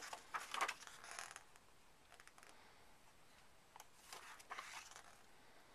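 Photobook pages turned by hand: soft paper rustling in two bouts, one at the start and another about four seconds in.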